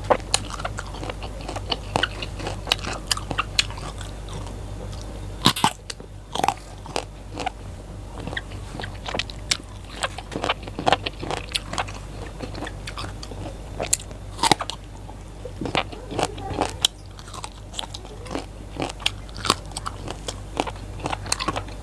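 Close-up crunching and chewing of raw vegetables: crisp, irregular bites and chews, with a few sharper crunches.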